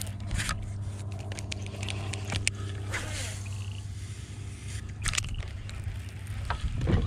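Steady low hum of a bass boat's electric trolling motor, with scattered clicks and scrapes from a baitcasting rod and reel being worked.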